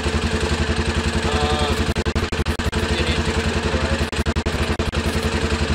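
ATV engine idling steadily with an even, fast low pulse. The sound stutters and drops out briefly around two seconds in and again around four seconds in.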